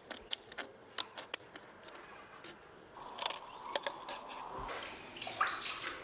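A plastic bottle crackles and clicks sharply as it is handled. From about halfway in, water sloshes and drips in a plastic basin as a hand and the bottle dip into it.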